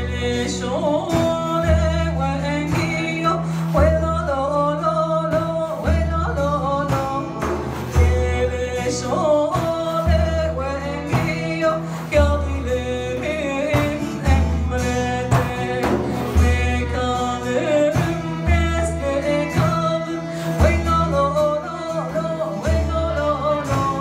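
Live folk music from a small ensemble: a woman singing with frame drums, with violin and long-necked saz in the band, over a deep beat that recurs about every two seconds.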